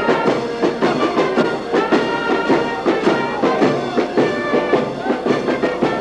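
Concert band playing music with a steady beat.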